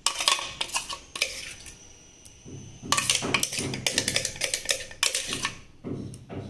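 A metal spoon scraping and knocking against a stainless-steel mixer jar and bowl as thick ground mint paste is scooped out: a few scattered scrapes, then a dense run of quick scrapes and knocks about halfway through.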